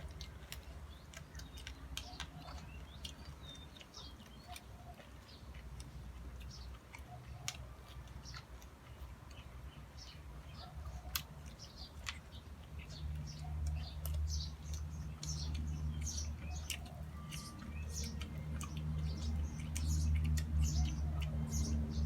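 Small birds chirping over and over in quick short calls, with a low rumble that grows louder in the second half.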